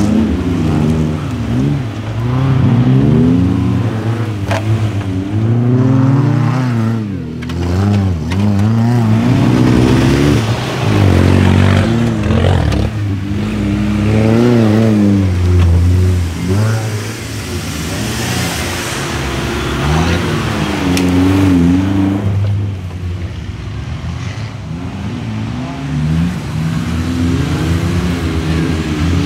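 Off-road 4x4 SUV engines revving up and down again and again, the pitch rising and falling every second or two.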